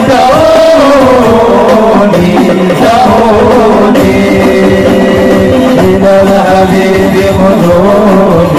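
Hadroh ensemble performing an Arabic sholawat: men singing together into microphones, amplified through a PA, over a rapid, steady frame-drum (rebana) rhythm.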